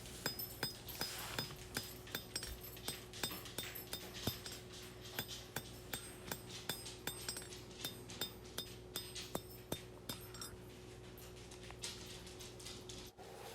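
Hand hammer forging a hot steel knife blank on an anvil, striking steadily at about two to three blows a second, each blow with a short metallic clink. A faint steady hum runs underneath.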